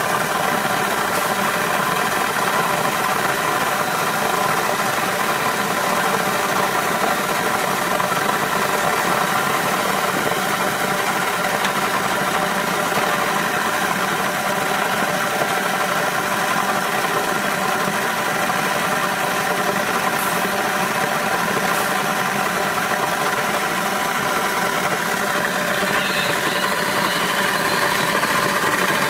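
Variovac Optimus thermoforming packaging machine running with a steady mechanical hum.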